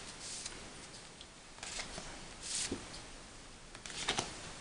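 A stack of postcards being handled and shuffled by hand: a few soft rustles and slides of card against card, with a cluster of light clicks about four seconds in.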